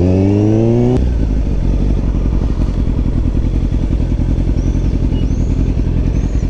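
Motorcycle engine accelerating, its pitch climbing for about a second before dropping sharply at a gear change, then running on steadily at lower revs with a fast, rough pulse.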